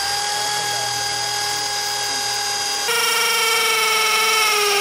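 Electric drill driving a long bit through a guadua bamboo culm, a steady whine. It spins up at the start and jumps to a higher, slightly louder pitch a little under three seconds in.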